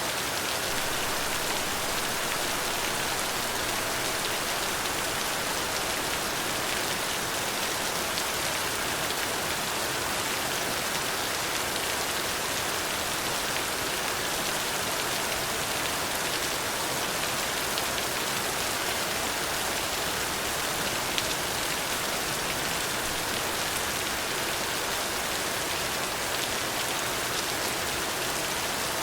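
Steady rain falling on a surface, an even hiss of many drops without thunder.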